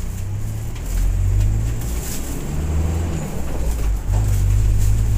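Low, steady engine and road rumble heard from inside a moving vehicle, swelling and easing, with the engine note rising briefly about halfway through.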